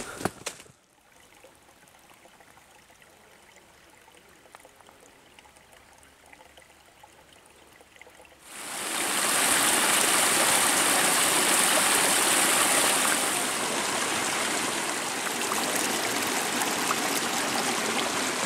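Steady rush of running stream water that comes in suddenly about eight seconds in and holds, after several seconds of faint quiet.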